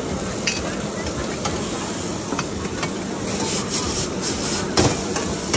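Stir-frying in a wok over a strong gas burner: a steady rush of burner noise and sizzling, with the metal spatula clanking against the wok a few times. The loudest clank comes near the end.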